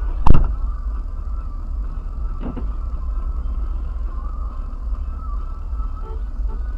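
A sharp, loud thump about a quarter second in, then the steady low rumble of a car's cabin with the engine idling, and a fainter knock about two and a half seconds in.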